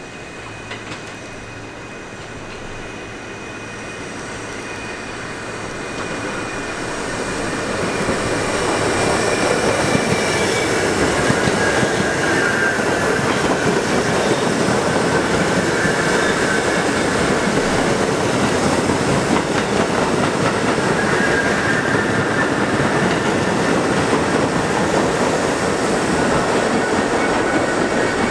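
New York City subway train running on the rails, its rumble building over the first several seconds to a loud, steady din of wheels on track with clickety-clack, and high wheel squeal in the second half.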